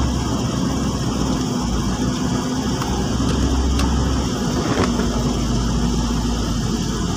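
Steady hum of a car driving on a wet road, heard from inside the cabin: engine drone and tyre noise, with a few faint ticks.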